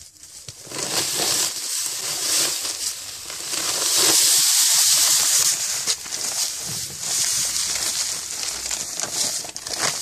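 Salt pouring from a sack into an earthing pit around an earth rod: a steady hiss of grains landing on the salt and soil. It starts about a second in and is loudest around the middle.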